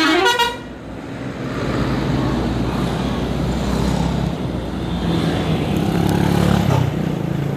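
The last notes of a bus's musical telolet horn end about half a second in. Then a passing bus's engine and tyres give a steady low rumble.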